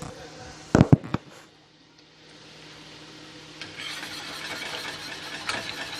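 Cookware clattering in a few sharp knocks about a second in, then from about four seconds a pan sizzling with the light scrape and clink of a utensil stirring it.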